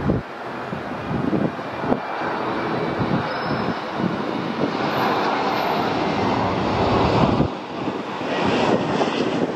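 Twin-engine jet airliner rolling along the runway, its engines making a broad rushing noise that swells about five seconds in and drops off sharply about two and a half seconds later. Wind buffets the microphone with a few short thumps.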